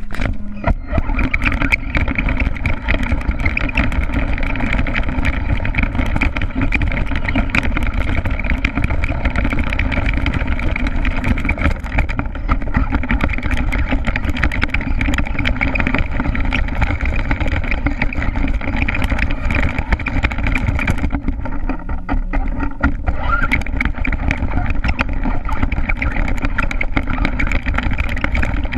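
Redcat Racing RC stadium truck driving over rough ground, heard from on board: a steady motor drone mixed with jolts and rattles from the bumpy surface. It eases off briefly about two-thirds of the way through.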